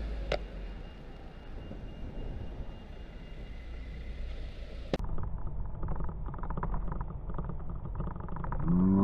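Street traffic heard from a moving bicycle: a van and a car going past close by, with steady road noise and low rumble. About five seconds in the sound cuts off and returns duller and muffled, and near the end a loud, drawn-out shout starts.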